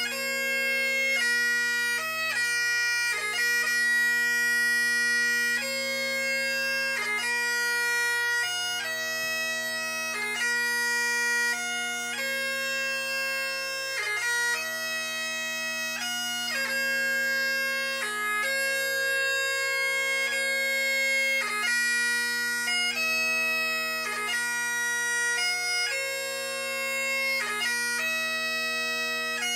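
Great Highland bagpipe playing a piobaireachd lament: a slow chanter melody of long held notes, broken by quick gracenote embellishments, over steady unbroken drones.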